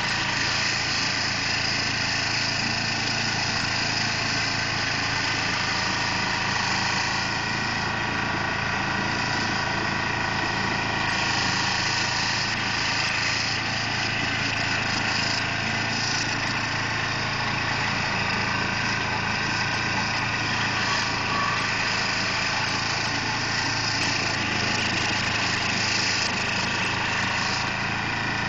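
2004 Carlton SP4012 stump grinder running at a steady speed, its engine hum unchanging, with spells of higher hiss coming and going as the cutter wheel works at the stump.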